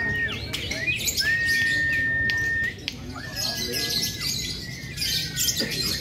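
Caged lovebirds chirping and chattering, with long steady high whistled notes, each a second or more, repeating several times over the chirping.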